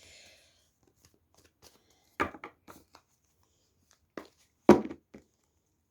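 A tarot deck being handled. First a brief rustle of cards sliding, then several sharp slaps and taps of cards against each other or the table, the loudest about three-quarters of the way through.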